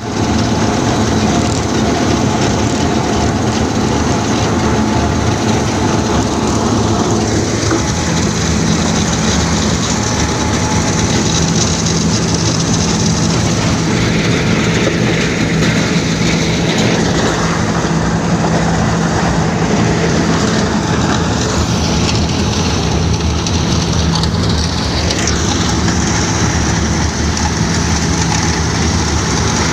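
Wirtgen W 130 F cold milling machine running continuously, a loud steady rumble of diesel engine and machinery with a steady engine tone that firms up about eight seconds in.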